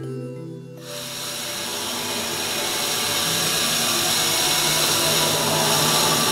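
A steady rushing hiss comes in about a second in and slowly grows louder, over background music with held tones.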